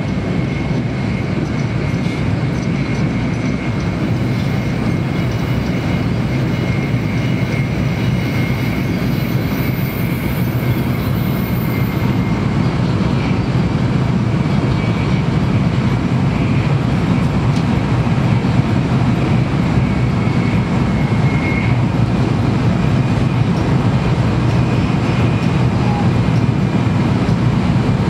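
Shinkansen bullet train running at speed, heard from inside the passenger car: a steady low rumble with a faint high tone above it.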